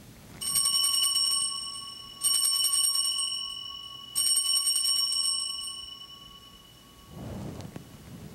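Altar bells rung three times, about two seconds apart, at the elevation of the consecrated host. Each ring is a quick shaken jingle of high, clear tones that rings on and fades.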